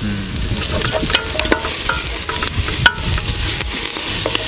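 Food sizzling as it fries in a large metal cooking pot, with a spoon stirring it and clicking and scraping against the pot.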